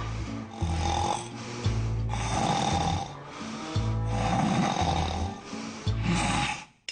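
A person snoring, about four snores roughly two seconds apart, over background music with a low bass line.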